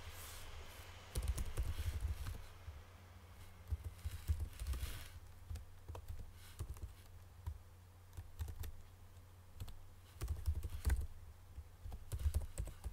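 Typing on a computer keyboard: short bursts of keystrokes with pauses between them.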